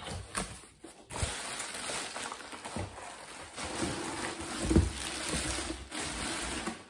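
Plastic wrapping rustling and crinkling as a plastic water jug is pulled up out of its cardboard box. There are a few knocks, and one louder dull thump about two-thirds of the way through.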